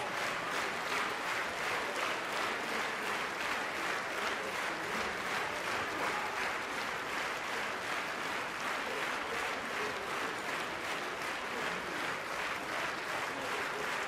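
Large theatre audience applauding, clapping together in a steady rhythm.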